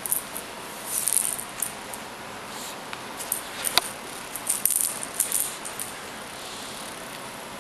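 A cat toy rattling and jingling in short, irregular bursts as a Savannah kitten bats and bites at it, with one sharper click near the middle.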